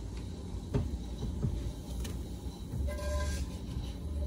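A spatula scraping and tapping in a frying pan as fried onions are worked out of it, with a few sharp clicks. About three seconds in comes a short beep-like tone, and a low hum rises from then on.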